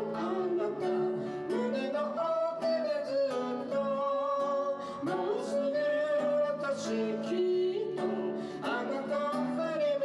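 Background music: a song with a singing voice over plucked acoustic guitar.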